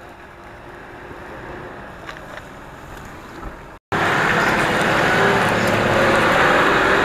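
Nissan Patrol 4x4 engine running faintly at a distance as the vehicle creeps down a steep grassy slope. After a brief silent gap about four seconds in, the engine and tyre noise become much louder and close as it drives across grass.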